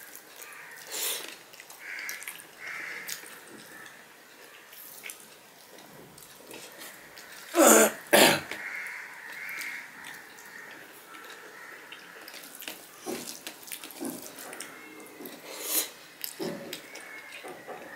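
Fingers mixing and squishing rice with vegetable curry on a steel plate, and eating, with small scattered wet clicks. About eight seconds in there are two loud, sharp throat-clearing sounds close together.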